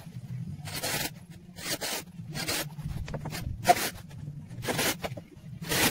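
A hand tool drawn in short rasping strokes along the top edge of a timber floor joist, six strokes at roughly one a second, over a low steady hum.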